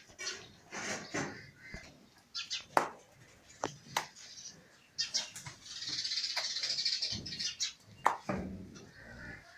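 Cattle moving about on a concrete floor: scattered sharp knocks and clatter, with a steady hiss lasting about two seconds midway.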